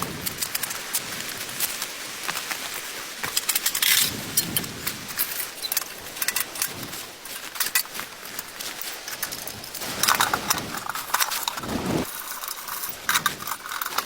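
Rustling and clattering of gear being handled, with many irregular small clicks and scrapes that come in louder clusters a few times.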